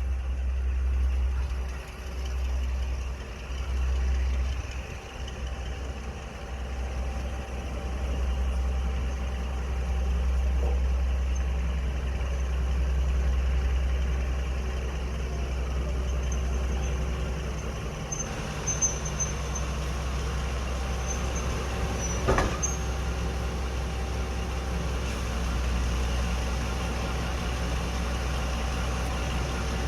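Heritage diesel locomotive engine running steadily with a low rumble, and a single sharp knock about 22 seconds in.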